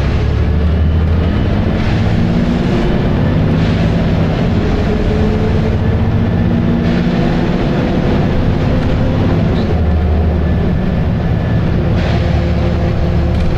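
Volvo B7RLE single-decker bus engine running under way, a loud, rough drone with its note rising and falling a few times as the bus pulls and changes gear, along with body rattle.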